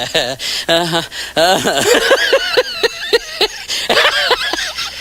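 Laughter: a voice laughing in a quick run of short, high-pitched 'ha' bursts, about five a second through the middle.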